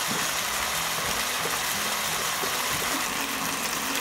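Diced chicken and chicken liver frying in a nonstick pan, a steady sizzling hiss with a faint low hum beneath.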